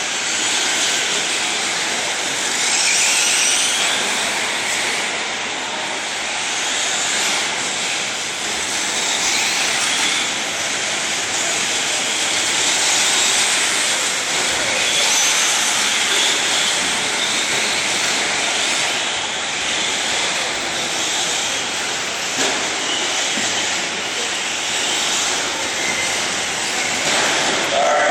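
Radio-controlled 4x4 short-course trucks racing on a dirt track, their motors whining up and down over a steady wash of noise as the pack circulates.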